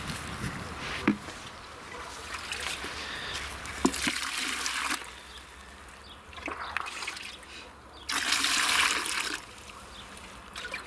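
Water pouring out in two spells, the first from about two seconds to five seconds in and the second around eight to nine seconds in, with a couple of short knocks.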